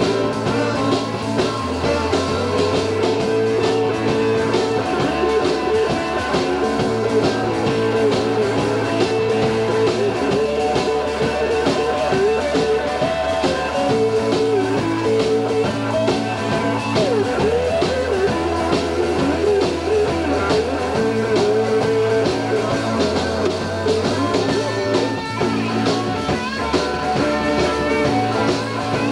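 Live blues rock-and-roll band playing an instrumental stretch on saxophone, electric guitars, bass guitar and drums, loud and steady. A wavering lead line sits over a bass that changes note every couple of seconds.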